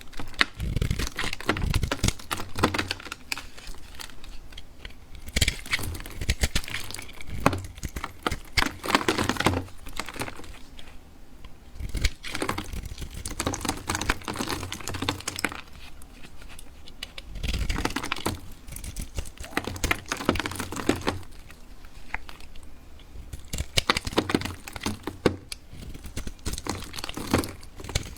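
Blade cutting through dry bar soap: crisp crackling and clicking as it slices and the soap breaks, in bursts every few seconds.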